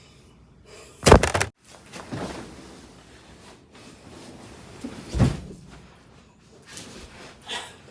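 A loud knock or thump about a second in and another about four seconds later, with a fainter one near the end.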